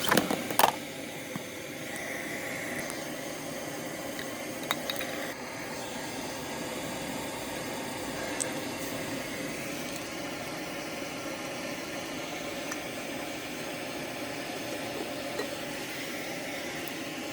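A glowing-hot ball sizzling and bubbling in school glue: a steady hiss with scattered small pops. A few sharp knocks come in the first second.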